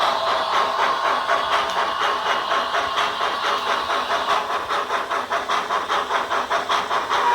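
HO scale model steam locomotive's digital sound decoder playing steady, evenly spaced exhaust chuffs with hiss through a small speaker.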